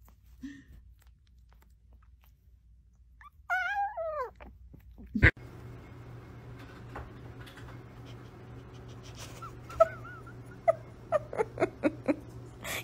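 A dog whimpering: one long whine that falls in pitch about four seconds in, then, after a change in the background hum, a few short, quiet whimpers near the end.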